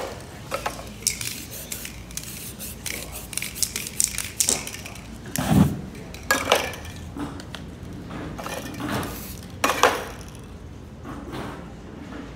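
Spray-paint work: short hisses of aerosol spray paint among clinks and knocks of the cans and tools, with a dull thump about halfway through.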